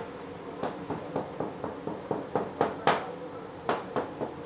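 Irregular knocking and clatter of bakery work, a few sharp knocks a second, over a steady machine hum.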